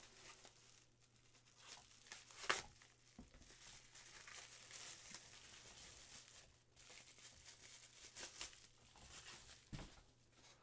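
Bubble wrap crinkling faintly as it is pulled off a resin model part by hand, with a few sharper crackles, the loudest about two and a half seconds in.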